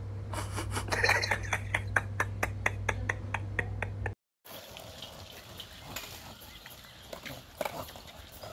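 A rapid, uneven run of short, sharp clicks over a steady low hum for about four seconds. After a moment's silence comes a quieter, rough rolling noise: a skateboard carrying a dog over asphalt.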